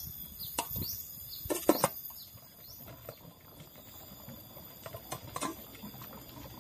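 Metal pot lid clinking against an aluminium cooking pot: a couple of sharp clanks as it is set on, the loudest near two seconds in, and lighter clinks about five seconds in as it is lifted off. Short high chirps, like a small bird, repeat in the background during the first half.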